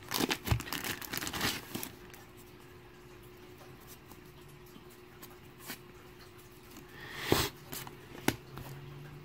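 Thin plastic bag crinkling as it is opened, in a burst of crackles during the first two seconds. Then a few separate light clicks from a deck of cards and its paper band being handled, the sharpest near the end.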